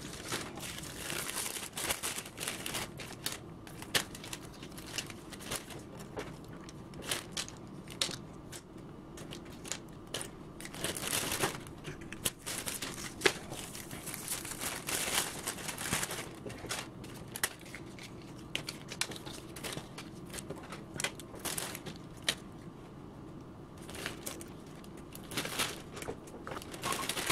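Thin plastic treat bags crinkling and rustling as they are handled and filled with small party favours, with scattered light clicks and taps from the plastic toys and pencils going in.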